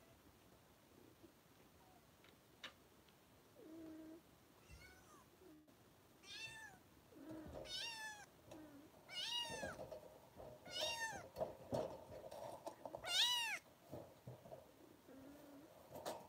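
Six-week-old kittens mewing: a run of about six high-pitched mews, each rising then falling, in the second half, with a few quieter, lower calls before and after.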